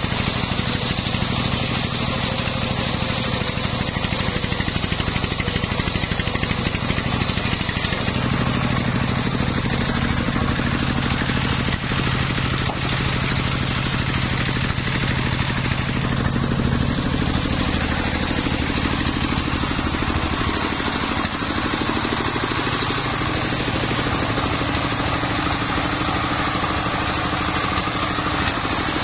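Single-cylinder horizontal diesel engine driving a mobile circular sawmill, running steadily under load as the blade rips a long waru log lengthways into planks. The engine note shifts about 8 seconds in and again about 20 seconds in.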